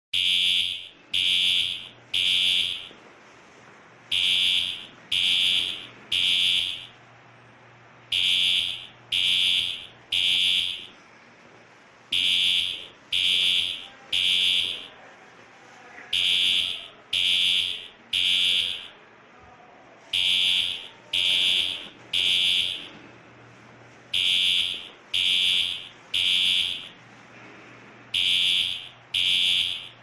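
Siemens fire alarm horns sounding the temporal-3 evacuation pattern: three loud, buzzy blasts about a second apart, then a short pause, repeating every four seconds during a system test.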